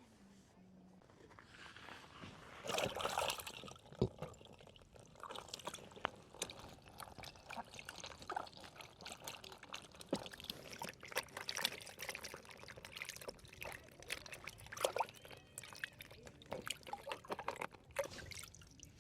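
Liquid pouring and trickling, with a louder rush about three seconds in, followed by many small irregular clicks and taps.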